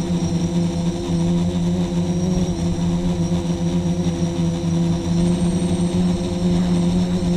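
Electric motors and propellers of an FPV quadcopter running steadily, heard from a camera mounted on its frame, a constant multi-toned hum. A low, flickering rumble of wind on the microphone runs beneath it.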